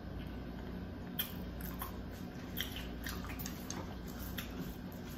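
Close-miked chewing and wet mouth sounds of someone eating spaghetti squash with meat sauce, with scattered small clicks and crackles. A fork scrapes in the squash shell near the end, over a steady low hum.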